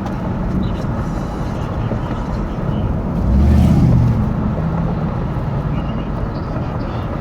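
Steady traffic or road rumble from a vehicle, with an engine growing louder for about a second around the middle.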